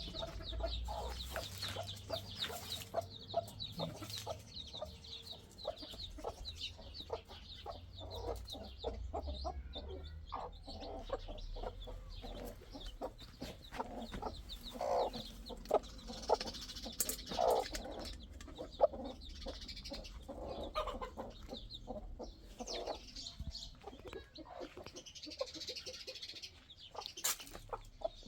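Chickens clucking on and off, with quick high chirps mixed in.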